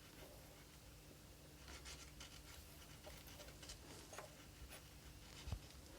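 Near silence: room tone with a faint steady low hum and a few faint light ticks.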